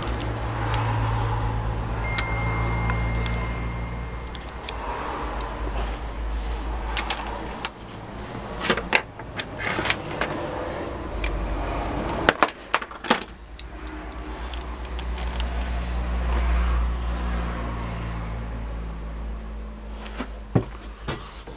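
Metal clinks and taps of a screwdriver working the circlip on a Bosch starter motor's pinion shaft, scattered through the middle and once near the end, over a steady low hum that briefly drops out a little past the middle.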